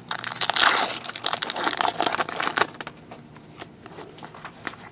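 Trading card pack wrapper crinkling as it is torn open and handled. The crackle is densest for the first two and a half seconds, then thins to scattered faint ticks.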